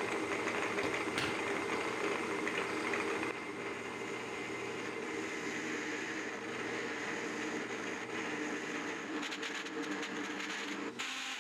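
Metal lathe running steadily, turning a wooden broom-handle piece being shaped into a dummy shaft. Its steady hum drops slightly in level about three seconds in.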